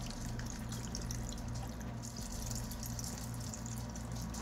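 Water pouring in a steady stream from a cardboard carton into a pot of stew base, over a steady low hum.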